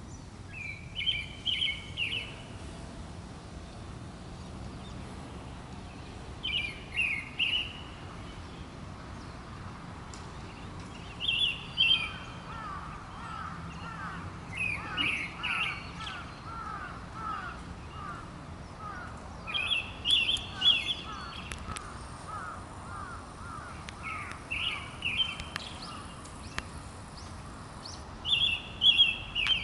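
Wild birds singing: one bird repeats a short, bright phrase of several quick notes about every four to five seconds, seven times in all, while through the middle a second, lower series of rapid falling notes runs for about ten seconds.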